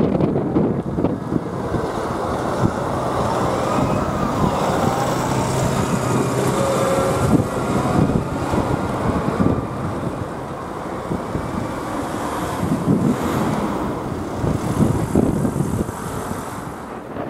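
Road traffic crossing the tracks: a large farm tractor towing a trailer passes close by with its diesel engine running steadily, followed by cars driving over the crossing.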